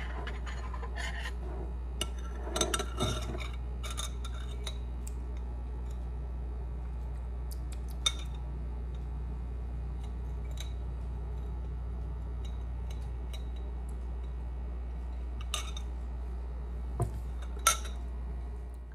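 A straw clinking and scraping against a ceramic mug of hot drink as it is stirred, a handful of scattered clicks over a steady low hum.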